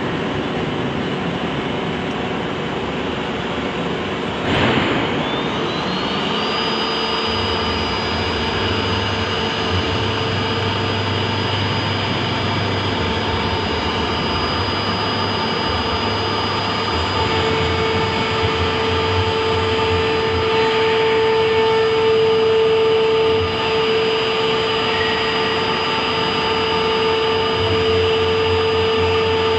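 Three-spindle CNC wood router running, with a short burst of noise about four and a half seconds in, then a spindle whine rising in pitch as it spins up and settling into a steady high whine over the machine's constant running noise and low hum.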